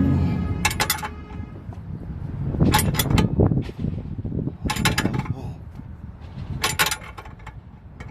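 Hand tool working a suspension fastener: short clusters of sharp metallic clicks about every two seconds. A vehicle engine hum fades out over the first second or so.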